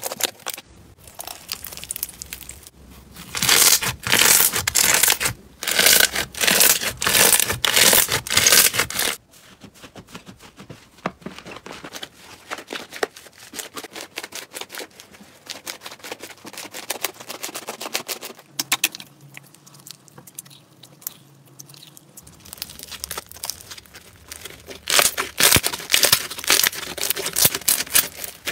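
Hands squeezing and kneading soft slime, making wet squishes thick with crackles as the slime is pressed and pulled. Dense, loud runs come in the first third and again near the end, with quieter, sparser crackling between.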